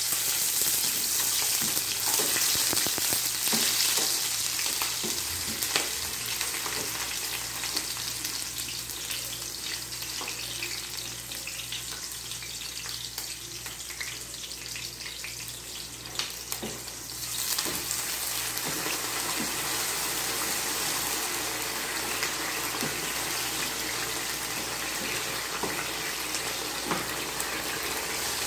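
Sliced onions sizzling in hot oil in a stainless steel frying pan, with the clicks and scrapes of a wooden spoon stirring them. The sizzle thins out in the middle and grows louder again a little past halfway.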